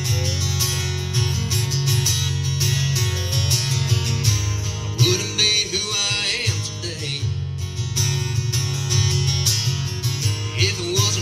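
Acoustic guitar strummed in a steady country rhythm, an instrumental break between sung lines of a song.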